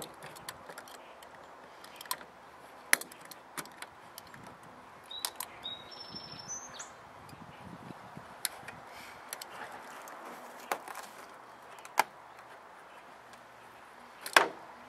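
Utility knife cutting through the plastic bed-rail cover over a pickup's stake pocket: scattered sharp clicks and snaps, the loudest near the end.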